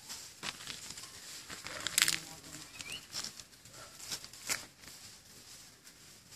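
Scattered rustling and crackling from foliage and footsteps, with a louder rustle about two seconds in, and a couple of short, rising bird chirps.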